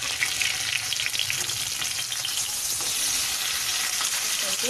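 Fish pieces shallow-frying in hot oil in a metal kadai: a steady crackling sizzle, with a metal spatula working against the pan as the pieces are turned.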